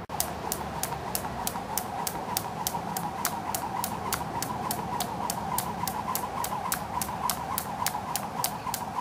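Skipping rope slapping an asphalt path in a steady rhythm, about three sharp strikes a second, over a steady wavering tone.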